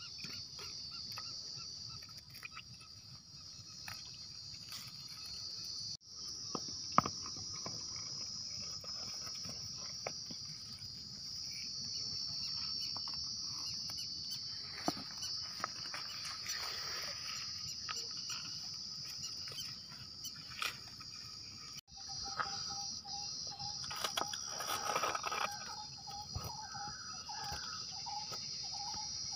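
Steady high-pitched chorus of insects with occasional small clicks. In the last few seconds a repeated short note and a few brief calls join in.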